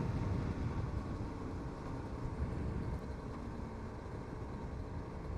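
Wind rumble on the microphone while riding, over the faint, steady running of a Cagiva Mito 125's single-cylinder two-stroke engine at an even cruise.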